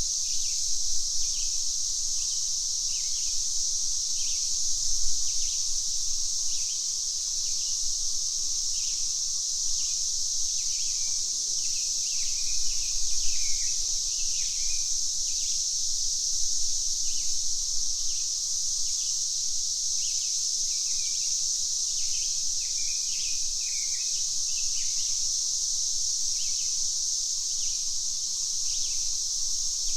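Cicadas giving a steady high-pitched drone, with birds chirping in short repeated calls over it.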